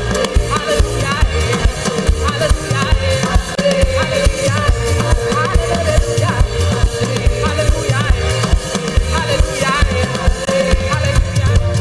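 Live band music with drum kit and bass keeping a steady beat under melodic lines.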